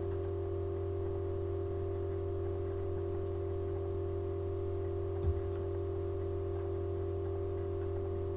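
A steady hum of several held tones that does not change, with one soft knock about five seconds in.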